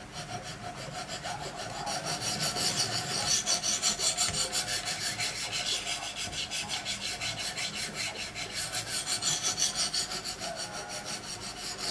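Wicked Edge diamond stones scraping back and forth along the edge of a clamped Spyderco fixed blade in CPM-S90V steel. The strokes are quick and even, about four a second, grinding the edge to raise a burr.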